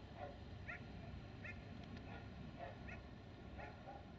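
Geese honking: faint, short calls about two a second, irregularly spaced, over a steady low background rumble.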